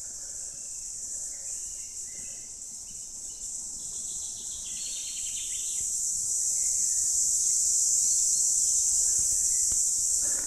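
Chorus of cicadas singing: a steady, high-pitched buzz that swells louder about halfway through and then holds.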